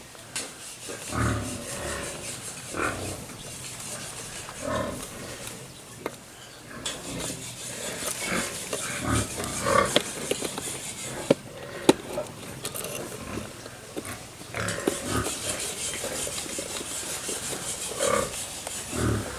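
Pigs grunting now and then, with a few sharp clicks near the middle.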